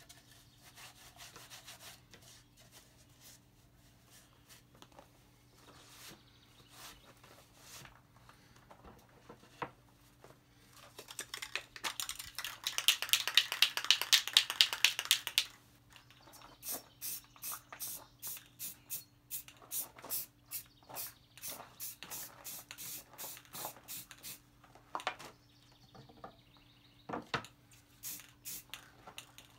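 Repeated back-and-forth rubbing strokes: a few seconds of fast, loud strokes near the middle, then slower, separate strokes at a few a second.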